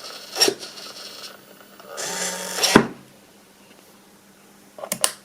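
Hobby servos of an Arduino useless box whirring briefly, with sharp clacks of the lid and switch arm: one clack about half a second in, a short whir ending in a loud clack near the middle, and a quick double click near the end.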